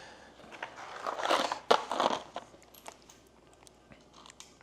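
Rustling, crunching handling noise with sharp small clicks, loudest from about one to two and a half seconds in, then a few scattered ticks: small bolts and lock washers being handled and sorted.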